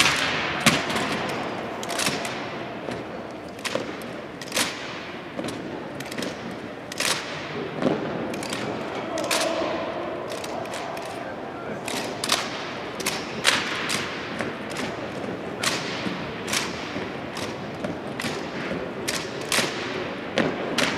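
Sharp, irregular slaps and knocks of M1903 Springfield rifles being handled in exhibition drill, about one or two a second, echoing in a large hall.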